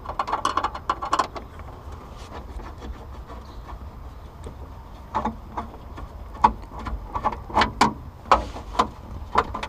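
Screwdriver backing a screw out of the plastic lower dash trim of a Toyota pickup, with irregular small clicks and plastic taps. A cluster of clicks comes in the first second or so, then after a quieter stretch another run of clicks and knocks through the second half.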